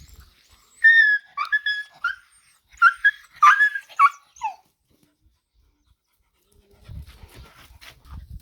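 Puppy whimpering and yelping: a string of short, high-pitched cries in two bursts, the last one sliding down in pitch. Low rustling and bumping follow near the end.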